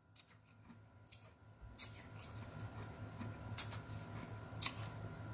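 Faint breathing out through pursed lips, from a burning mouth after very spicy chocolate, with a few light mouth clicks; the breath grows a little stronger about two seconds in.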